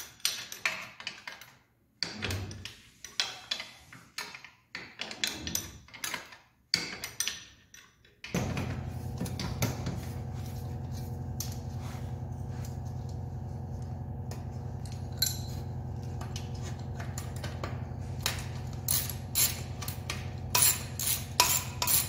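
Ratchet, wrenches and sockets clinking against metal as motorcycle exhaust pipes are unbolted, with tools picked up and set down on a concrete floor. About eight seconds in, a steady low hum starts underneath the clinking.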